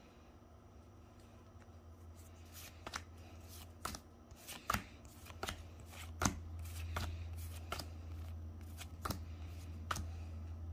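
Pokémon trading cards flipped through by hand, one card at a time slid off the front of a small stack and onto the back. About ten sharp flicks, starting a few seconds in, a little under a second apart.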